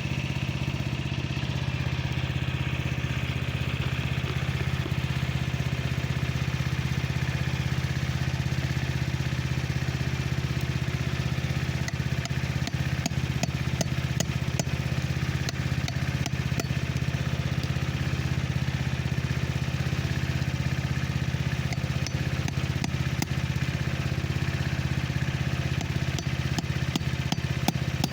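A steady low machine hum, like a motor running, with light metallic taps and clicks from about twelve seconds in as a screwdriver and hammer work to break a lawn tractor tire's bead from its rim.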